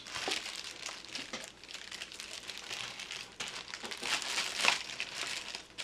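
Clear plastic bag of accessories crinkling and rustling as it is handled and turned over, busier and louder for a stretch about three and a half seconds in.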